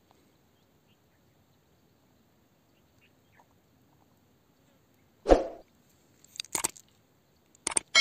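Subscribe-button animation sound effects: a short burst about five seconds in, then a few sharp mouse-click sounds near the end, leading into a bell ding.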